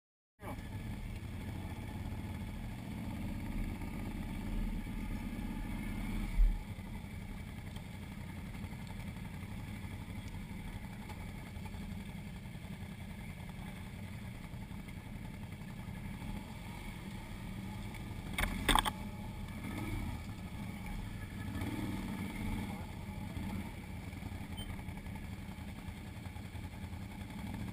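Can-Am ATV's V-twin engine running at low trail speed, a steady low rumble. There is a sharp thump about six seconds in and a brief clatter about two-thirds of the way through.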